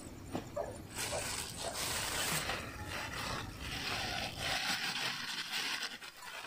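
A thin plastic bag crinkling and rustling as it is handled. It starts about a second in and goes on with small breaks.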